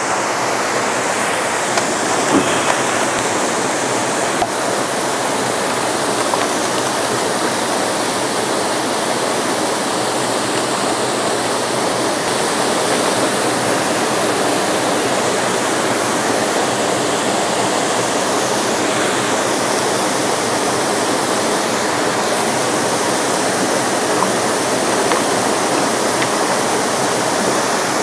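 Steady rush of water from a rocky forest stream fed by a waterfall, flowing over stones.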